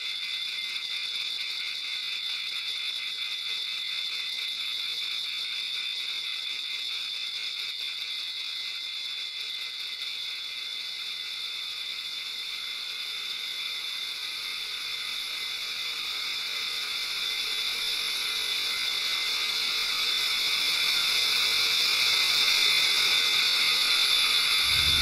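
Electroacoustic stage score: a dense, high-pitched texture of rapid fine clicking that holds steady and then swells louder over the last third.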